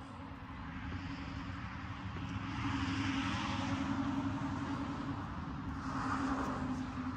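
A motor's steady drone with a low hum, growing louder over the first few seconds and swelling again near the end.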